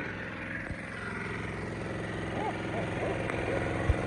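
Gold dredge engine running steadily, with a sharp knock near the end.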